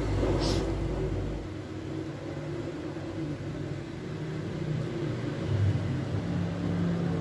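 A steady low rumble with shifting low tones, and a brief high hiss about half a second in.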